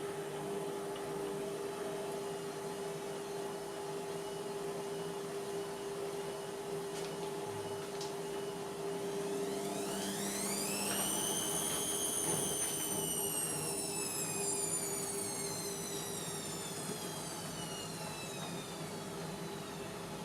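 Indesit washing machine running with a steady hum. About halfway through, its motor whine rises quickly in pitch as the drum spins up, then falls slowly as it coasts down.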